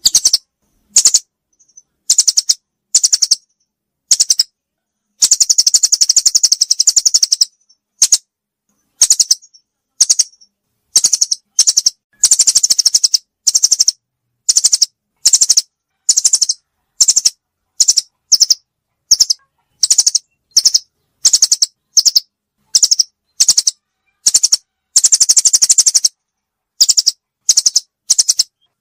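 Recorded calls of a forest bird played as a bird-luring track: short, rapid, high-pitched trills repeated roughly every second, with a few longer trilling runs of about two seconds, separated by clean silent gaps.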